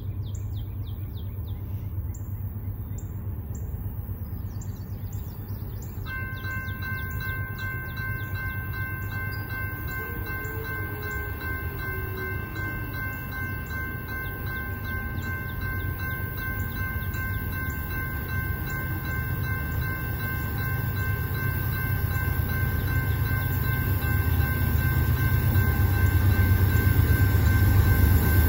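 Railroad grade-crossing bells start ringing about six seconds in and keep ringing in rapid, steady strokes as the gates lower, with birds chirping at first. The low rumble of an approaching freight train, led by a GE Dash 9-44CW diesel locomotive, grows steadily louder toward the end.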